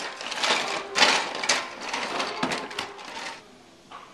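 Hard plastic toys clattering and knocking together as a child rummages through a plastic storage bin, a dense run of quick clacks that dies away after about three and a half seconds.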